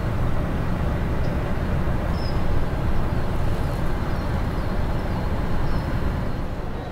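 Steady low rumble, with a few faint high chirps from about two seconds in.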